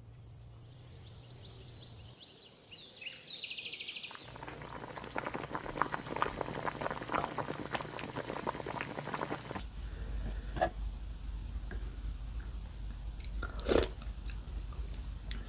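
Close-miked eating-show sounds: several seconds of dense crackling and clicking, then, near the end, one loud short slurp of soybean-paste stew from a wooden spoon.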